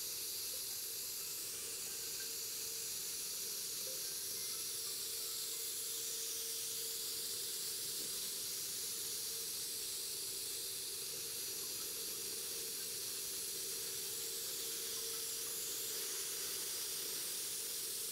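Gravity-feed spray gun hissing steadily as compressed air atomises clear coat onto the panel, over a faint steady low hum.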